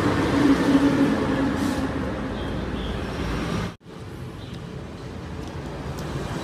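Steady road traffic noise, loudest in the first second or so with an engine hum passing. The sound drops out for an instant about four seconds in, then carries on quieter.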